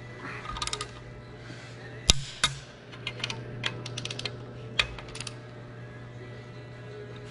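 Torque wrench with an extension tightening the head bolts on a Detroit Diesel Series 60 cylinder head: two sharp clicks about two seconds in, then lighter scattered ratchet clicks. A steady low hum runs underneath.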